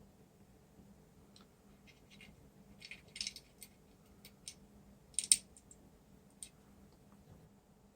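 Scattered small clicks and scrapes from a DIP chip being handled and its pins pressed into an IC socket on a circuit board, the loudest about five seconds in.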